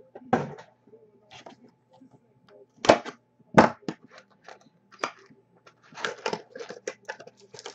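Trading-card box and pack packaging being handled and opened by hand: a run of sharp clicks, snaps and crinkles, with the two loudest snaps close together about three seconds in.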